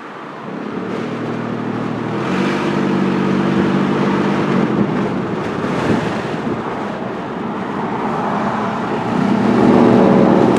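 A 2009 Nissan Frontier pickup's engine running under acceleration, heard inside the cab with road noise. Its note grows louder over the first couple of seconds, eases off around the middle, and builds again near the end. The truck has a complaint of random misfire and lack of power.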